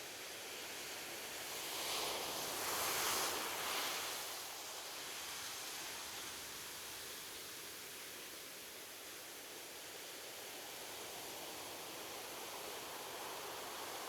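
Ocean surf washing on a beach: a steady hiss of water, with one wave breaking and swelling louder about two to four seconds in before settling back.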